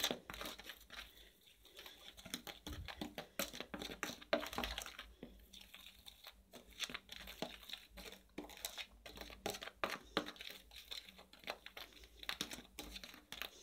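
Plastic spoon stirring a dry flour mix in a plastic tub: a continuous, irregular run of soft scraping and tapping strokes.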